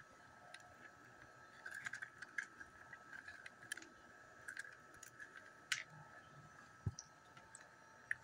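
Faint handling noises: scattered light clicks and taps as a burger bun is set onto food in a plastic takeout container, with one low thump about seven seconds in. A faint steady high whine runs underneath.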